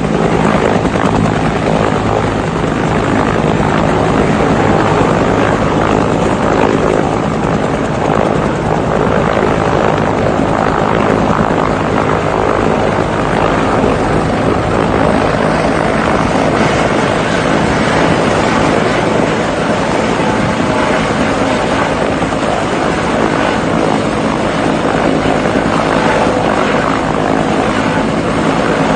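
Firefighting helicopter's rotor and engine running loudly and steadily at an even pitch.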